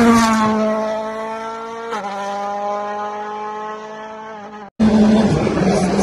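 World Rally Car's turbocharged four-cylinder engine at high revs, its pitch sliding down as the car goes by, with a gearshift about two seconds in. The sound cuts off abruptly just before five seconds. Then a rougher engine sound starts, its pitch wavering up and down.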